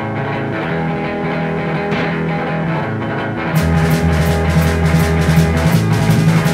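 Rock-style background music: sustained guitar chords, then drums and bass come in about three and a half seconds in with a steady beat.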